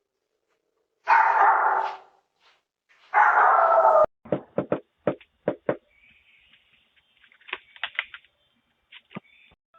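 A dog barking: two loud, drawn-out barks, then a quick run of about six short sharp barks, then fainter scattered barks.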